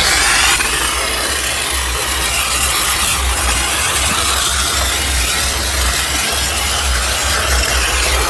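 Steam-cleaner gun jetting high-pressure steam onto a motorcycle's engine: a loud, steady hiss, with a low rumble underneath.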